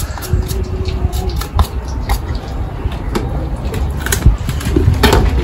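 A handheld grater scraping vegetables into a bowl in short irregular strokes during the first half, over a steady low rumble.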